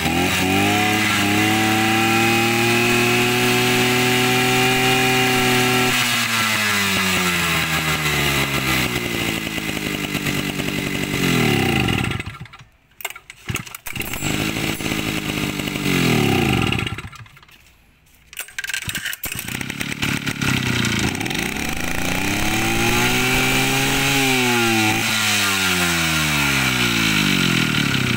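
Small 55cc engine of a Robin EC05 portable water pump running and being revved, its pitch rising and falling back several times. Twice the sound falls away almost to silence for about a second before picking up again.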